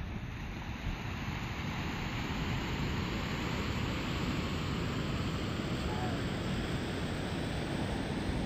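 Surf breaking on a beach mixed with wind buffeting the microphone: a steady rushing noise that grows a little louder about two seconds in.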